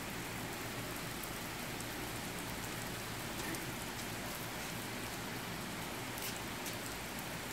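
Steady rain falling on a wet concrete driveway and street, an even hiss throughout.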